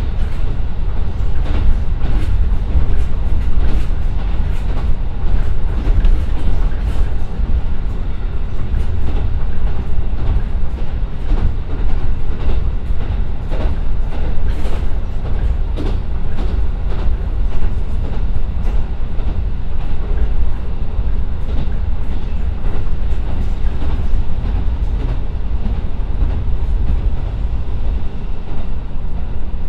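Cabin sound of a JR Kyushu KiHa 125 diesel railcar running along the line: a steady low rumble from its Niigata DMF13HZ diesel engine and running gear, with frequent clicks as the wheels pass over rail joints.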